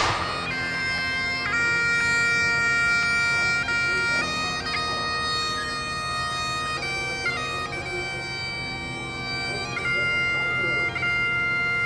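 Bagpipes playing a slow tune of held notes over steady drones, with quick grace-note flicks at each change of note. A sharp bang sounds right at the start.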